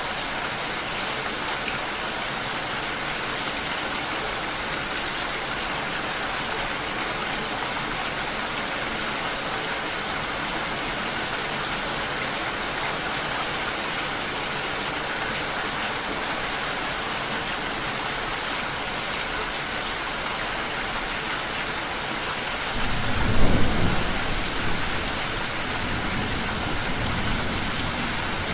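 Steady rain falling, with a loud rumble of thunder breaking in near the end and rolling on more quietly.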